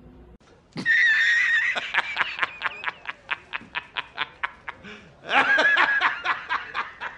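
A man laughing hysterically in loud, rapid high-pitched bursts, starting about a second in, with a second burst near the end.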